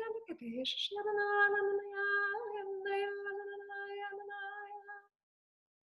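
A woman singing wordless light-language toning: a held note that breaks off briefly for a quick breath about a second in, then a long second note on nearly the same pitch that stops about a second before the end.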